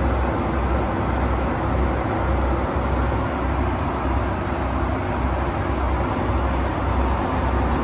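Steady in-flight cabin noise of a Boeing 757 airliner: the constant rush of jet engines and airflow, with a deep low rumble underneath.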